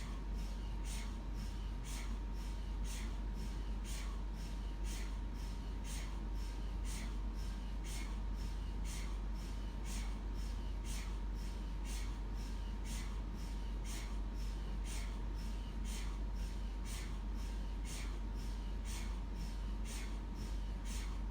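MRI scanner running a sequence: its gradient coils knocking in an even rhythm, a little over two knocks a second, over a steady low hum and a thin steady tone.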